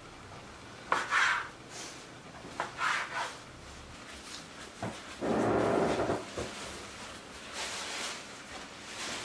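Soft dough being cut into pieces on a floured wooden board and rolled into balls between the palms against the wood: a few short knocks and scrapes, then a longer rubbing sound about five seconds in.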